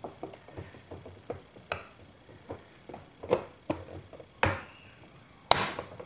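A chisel prying at the plastic top cover of a twin-tub washing machine: a run of irregular sharp clicks and knocks of plastic and metal as the cover is worked loose, the two loudest cracks near the end.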